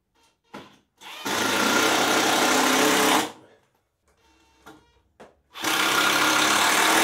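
Makita 18V cordless drill/driver running screws through a plywood support strip into the edge of a table-saw outfeed table, in two runs of about two seconds each with a pause between.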